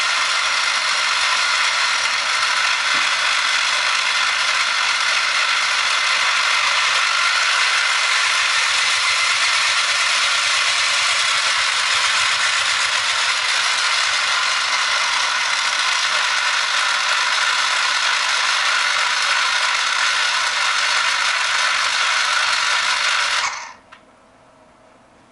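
RC car's 9V DC motor and gear train running steadily under Raspberry Pi PWM drive, with the wheels spinning. The motor cuts off abruptly near the end, leaving only a few faint ticks.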